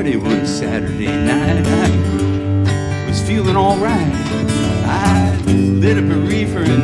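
Acoustic string band playing an instrumental break in country-blues style: acoustic guitars and mandolin keep a steady rhythm under a lead melody that bends in pitch, with light percussive clicks.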